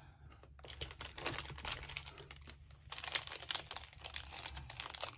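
Plastic snack wrappers crinkling as they are handled, a run of irregular crackles and rustles.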